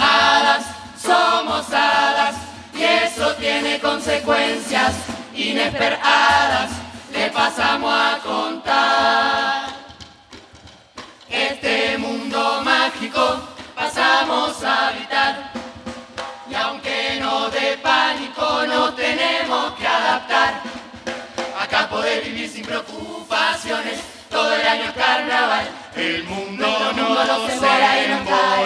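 Uruguayan murga chorus singing together to a drum beat. The singing drops away briefly about ten seconds in, then picks up again.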